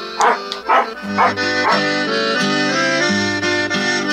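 A dog barks four times in the first two seconds, as music with long held notes comes in and carries on.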